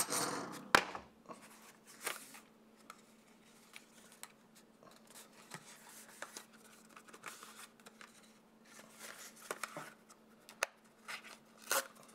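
Cardboard filter packaging being handled and pulled apart: scattered rustles, scrapes and light taps, loudest at the very start and again near the end, over a faint steady hum.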